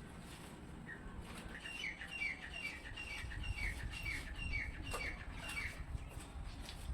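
A bird chirping in a quick series of about ten short, falling chirps, roughly two a second, over a low background rumble.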